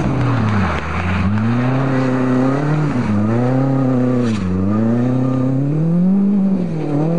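Lancia Delta S4 rally car's twincharged four-cylinder engine revving hard, its pitch climbing and dropping five or six times as the driver lifts off and gets back on the throttle through the slides.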